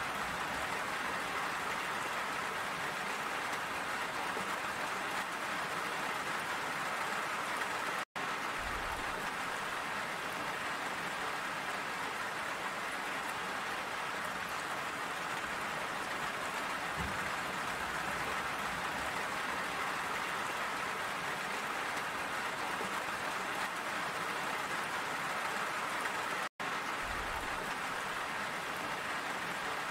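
Steady rain falling on a surface, an even hiss. Twice, about 8 and 26 seconds in, it drops out to silence for an instant.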